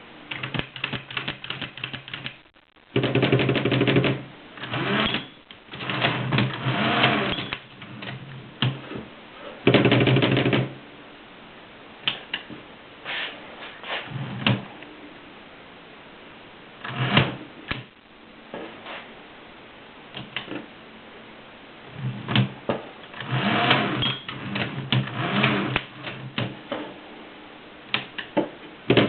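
Mercedes 6 typewriter in use: clusters of rapid key strikes with short pauses between them, and several louder buzzing bursts about a second long.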